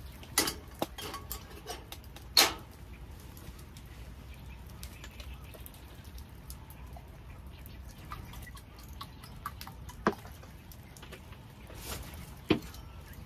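A few sharp knocks and clicks of camp gear and items being handled, the loudest about two seconds in, over a steady hiss of rain.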